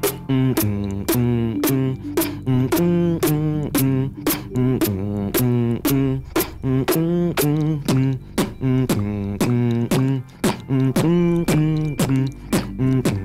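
Beatboxing: a hummed melody with sharp vocal percussion clicks laid over it at an even beat.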